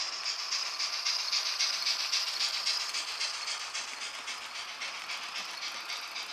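H0-scale model steam locomotive with its coaches running past: a quick, rhythmic hissing chuff over the whirr and rattle of the small train on the track. It grows louder as the engine nears, about two seconds in, then eases off.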